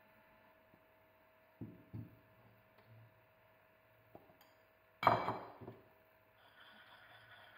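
Ceramic bowls knocking on a saucepan as sugar and flour are tipped in over eggs: two soft knocks, then a sharp clink about five seconds in with a few smaller knocks after it. Near the end a spring whisk starts stirring in the pan with a steady light scraping.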